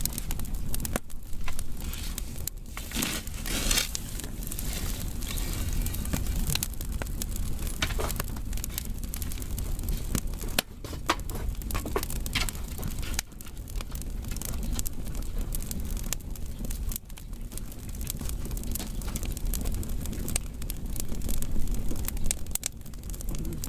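Firewood burning, with irregular sharp crackles and pops over a low steady rumble.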